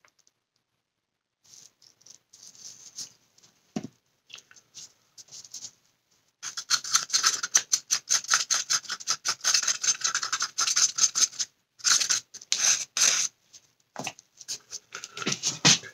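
Stick scraping and clicking inside a cup while stirring white tint into resin, a rapid scratchy rattle in three spells, the longest beginning about six seconds in.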